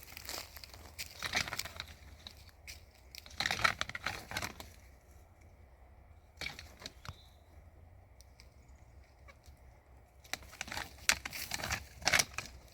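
Dry leaves and brush rustling and crunching in irregular bursts, with a quieter stretch in the middle.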